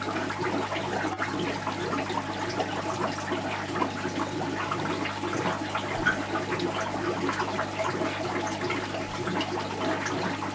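Aquarium water bubbling and trickling steadily, over a low steady hum.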